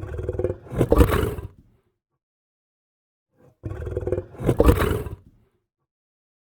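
A lion roaring twice, the same roar played again about three and a half seconds later; each roar rises to its loudest about a second in and then dies away.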